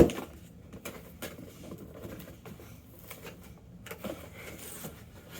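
A sharp click, then faint scattered clicks and rustling of a cardboard shipping box being opened and its packaging handled.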